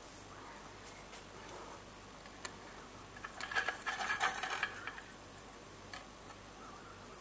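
Light metal clinking and rattling, in a cluster lasting just over a second about three and a half seconds in, as the hot Mamod Minor 1 toy steam engine is handled. A faint steady hiss runs underneath.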